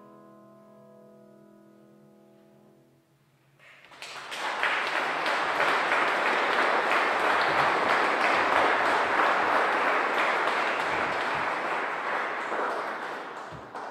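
A grand piano's last chord rings out and fades away, then an audience applauds for about ten seconds.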